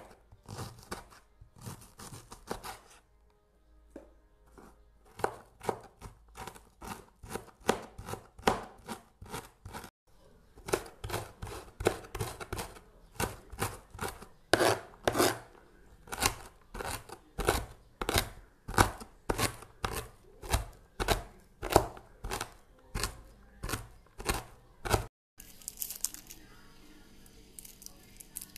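Kitchen knife chopping cabbage finely on a cutting board: a long run of sharp chops, about two a second, that stops near the end.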